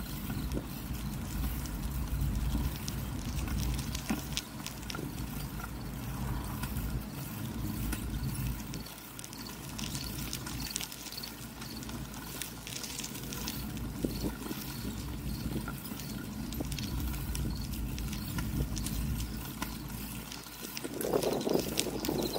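Bicycle rolling along a concrete alley: a steady low rumble of tyres and wind on the microphone, with scattered small clicks and rattles. A louder swell comes near the end.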